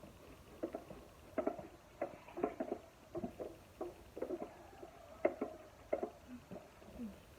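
Plastic parts of a canister vacuum cleaner being handled: irregular clicks, knocks and rattles as it is opened up and its parts are moved, with the motor off.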